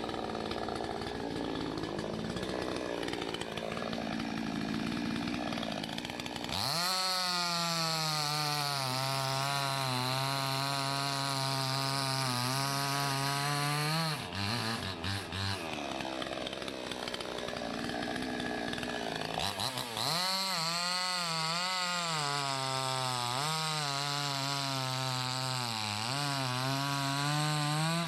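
Salem Master gasoline chainsaw bucking maple logs. After a rougher stretch, the engine goes to a high, steady whine about six seconds in, drops off briefly about halfway, then runs hard again. Its pitch dips each time the chain bites into the wood.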